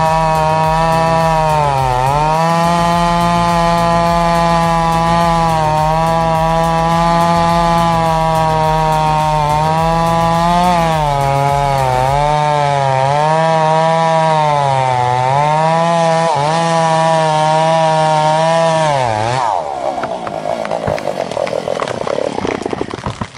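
A chainsaw runs at full throttle while cutting into a large tree trunk, its pitch dipping briefly several times as the chain bogs under load. About nineteen seconds in the saw stops, and a few seconds of crackling, cracking noise follow.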